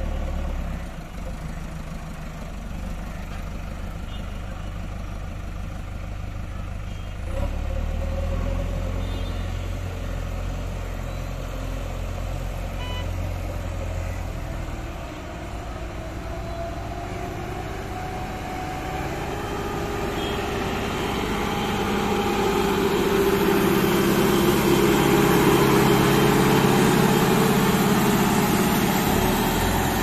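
Diesel engines of heavy road-construction machines, JCB backhoe loaders and a Mahindra motor grader, running steadily. Over the last ten seconds the engine note rises and grows louder as one of the machines revs up close.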